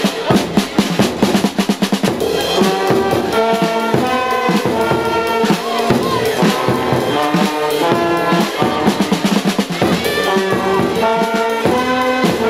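Band music: brass instruments holding and changing notes over a drum beat, with a quick run of drum hits in the first couple of seconds.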